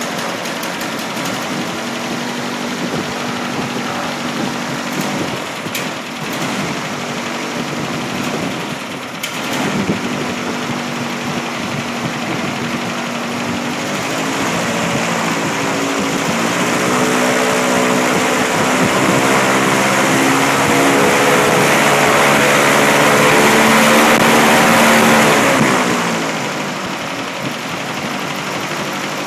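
Homemade airboat's 15 hp engine turning a 38-inch propeller on its first run, with a rush of air from the prop. It runs steadily at low speed, is throttled up from about halfway through so its pitch and loudness climb for some ten seconds, then drops back to idle near the end.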